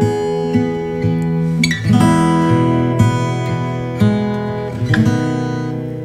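Background music: acoustic guitar strumming chords, with a strum roughly every second.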